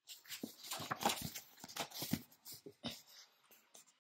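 A paperback picture book being handled and its cover opened: the paper rustles and scuffs in quick, irregular bursts.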